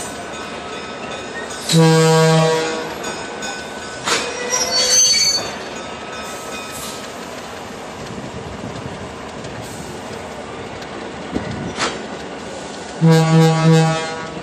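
Jersey Central Alco RS3 diesel locomotive sounding its horn in one blast about two seconds in and again in three short pulses near the end, over the steady rumble and clickety-clack of the passing passenger train. Wheels squeal briefly around the fourth and fifth seconds.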